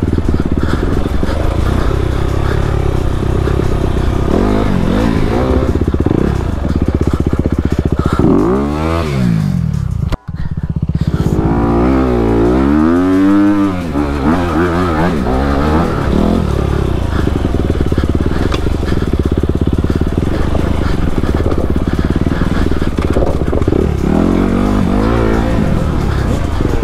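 Honda CRF250RX's 250 cc single-cylinder four-stroke engine running under way, its revs rising and falling several times as the throttle is worked. The sound breaks off for an instant about ten seconds in.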